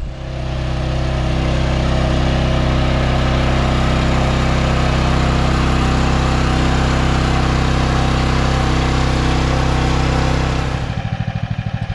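Chinese mini excavator's engine coming up within the first second and running steadily at high speed, then dropping back to a lower, pulsing idle near the end.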